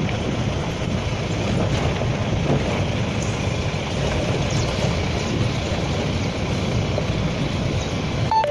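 Safari jeep driving along a gravel forest track: a steady low rumble of engine and tyres on gravel.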